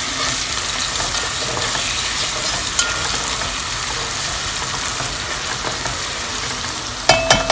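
Chopped onion and tomato sizzling in hot oil in a pot while being stirred with a spatula, a steady frying hiss as the masala is sautéed. A few sharp knocks near the end.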